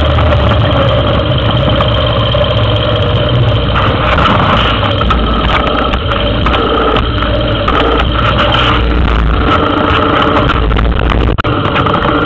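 2003 Yamaha Big Bear 400 ATV's single-cylinder four-stroke engine running while riding, its note changing a few times.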